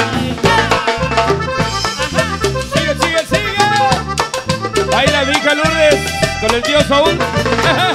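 A live band playing Latin dance music, with a steady, rhythmic bass beat under a wavering melody line.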